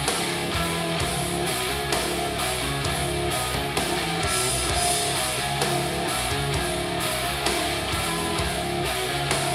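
Instrumental rock music with electric guitar and bass, played back through a speaker under test and recorded for a sound demo.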